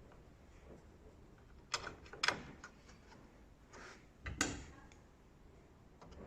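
A few sharp plastic clicks and knocks as a washing machine's door switch is handled and fitted back into place, the loudest about two and four seconds in.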